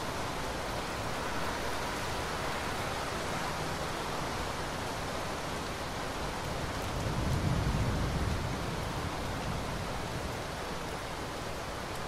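Steady rain falling, with a low rumble of thunder swelling about seven seconds in and dying away over a second or two.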